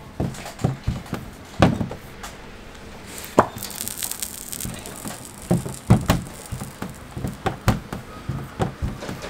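A rolling pin knocking and clacking against a stainless steel worktable as bun dough is rolled out, in irregular sharp knocks several a second with a few louder strikes.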